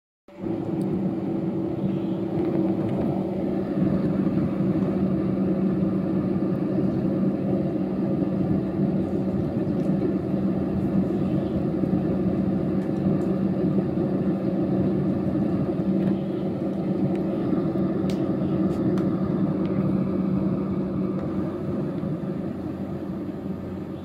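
Small electric fan inside a homemade cardboard mini air conditioner switching on and running steadily, a motor hum with several steady tones over the rush of blown air. It eases off slightly near the end.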